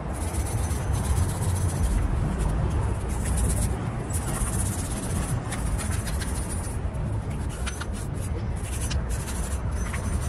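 Hand wire brush scrubbing rust off the bare steel wheel hub of a Mercedes-Benz Sprinter, a run of rough, scratchy strokes that come and go unevenly.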